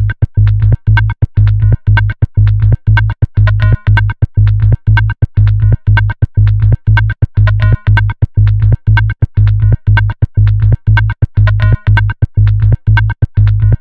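Electronic music: a synthesizer riff over a heavy bass, chopped into short, evenly repeating pulses about three times a second.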